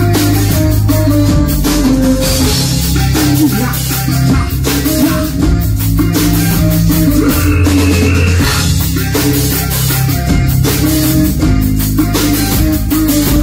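Live rock band playing loud amplified music: drum kit, electric bass and keyboards.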